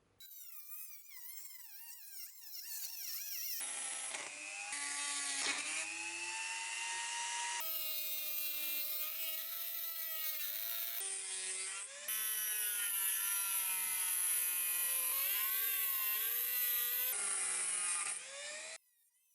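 Small electric power tool running and whining, its pitch wavering and dipping as it bears on the work, in a string of short clips that change abruptly every few seconds.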